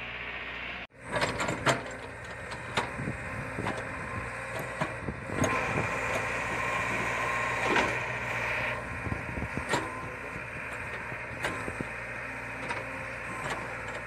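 Caterpillar hydraulic excavator's diesel engine running under load while it digs soil, with repeated sharp clanks and knocks from the bucket and linkage. A higher whine rises over the engine for about three seconds midway. The sound drops out briefly about a second in.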